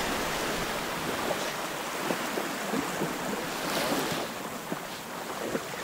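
Surf washing over the shallows of a beach, with wind buffeting the microphone.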